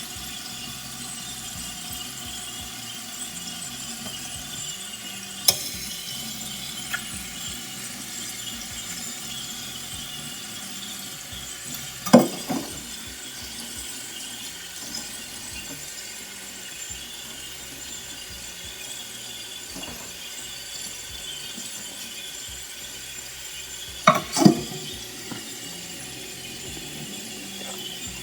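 Cooking utensils clinking and scraping against a pot over a steady hiss: a few light clicks, then a louder scrape about twelve seconds in and two quick ones near the end.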